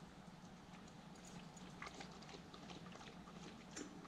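Faint, irregular wet clicks of a husky pup lapping water, over a low steady hum.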